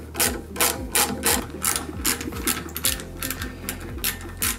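Background music with a steady beat of sharp ticks, about four a second.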